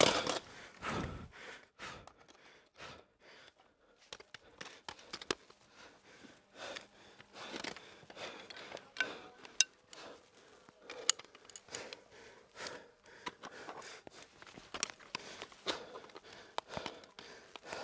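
A climber's hard breathing and sighing exhales while dry tooling, with scattered sharp clicks and scrapes of steel ice-tool picks and crampon points on rock.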